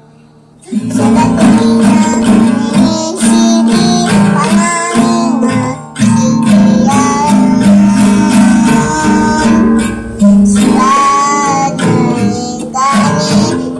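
A young child singing while strumming an acoustic guitar, beginning about a second in. The strums are steady and repeated under the sung melody.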